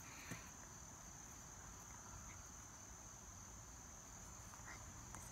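Near silence: quiet room tone with a faint, steady high-pitched whine and a couple of soft small taps.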